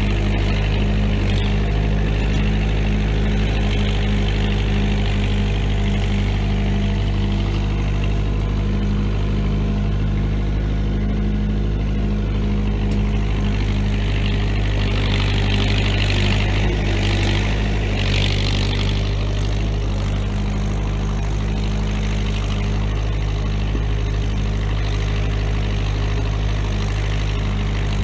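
Bobcat 943 skid steer's four-cylinder Perkins diesel engine running steadily, with a harsher rushing noise rising for a few seconds past the middle.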